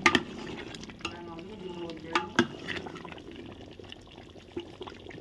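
Metal spoon stirring a thin, watery curry in an aluminium pot, the liquid sloshing and the spoon knocking against the pot a few times. The sharpest knock comes right at the start, and two more come close together a little past two seconds in.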